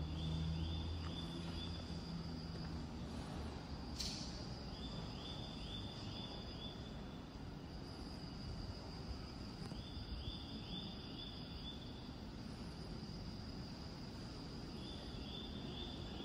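Quiet station-platform ambience: a short run of four or five high chirps repeats about every five seconds over a steady high whine. A low hum fades out in the first few seconds, and there is a single click about four seconds in.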